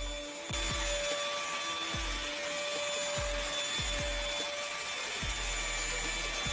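Handheld cordless vacuum cleaner running with a steady motor whine and hiss, its nozzle pushed over a cat's fur; it gets louder about half a second in.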